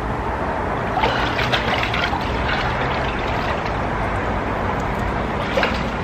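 Water sloshing and trickling in an inflatable cold-plunge tub as a person climbs out of it, with a few sharper splashes.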